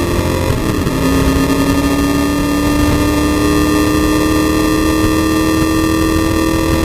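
Race car engine at full throttle, heard from inside the stripped cabin. An upshift about a second in drops the pitch, then the revs climb steadily.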